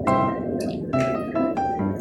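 Background music: a bouncy piano tune with a bass line, notes struck a few times a second.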